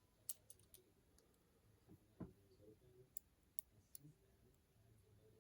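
Faint scattered clicks and light taps of a metal shim being worked into an ASSA 700 lock cylinder: a few sharp ticks, with one duller knock about two seconds in.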